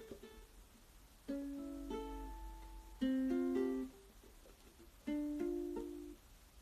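Ukulele strummed slowly: three chords about two seconds apart, each left to ring for about a second, the middle one loudest.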